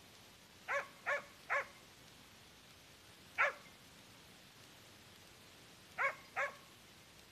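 Hunting dog barking at bay on a wild boar it has stopped: six short barks, three in quick succession, then a single bark, then two more.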